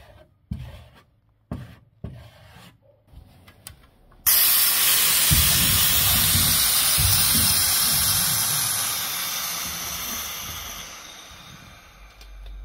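Compressed-air spray wand hissing as it sprays into the car's sill from under the body. The hiss starts abruptly about four seconds in, holds steady, then tapers off near the end; a couple of short knocks come before it.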